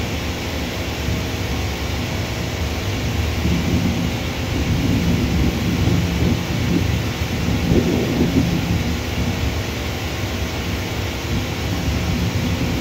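Low, uneven rumble of distant jet airliner engines across an airfield, steady throughout with a slight swell around the middle.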